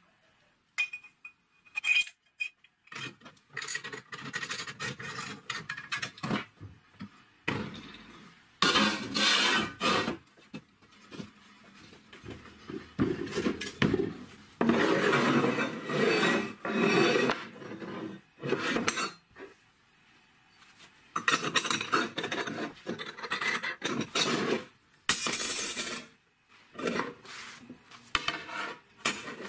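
Steel parts handled on a wooden workbench: metal clinking, with several longer stretches of scraping.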